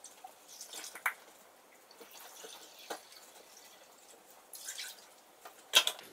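Water poured from a pitcher into a small measuring cup, trickling and dripping in short spells, with a few light clicks and knocks of the cup and pitcher, the loudest near the end.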